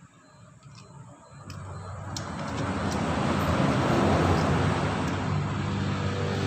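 An engine running. It swells in about two seconds in and then holds a steady low hum.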